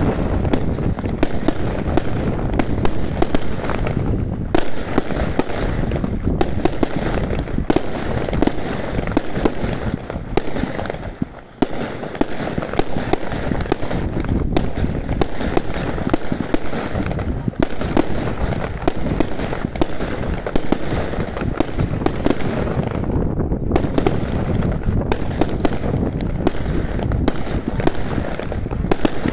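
Firework cakes firing a rapid, unbroken string of shots and aerial bursts, several a second, with a brief lull about eleven seconds in.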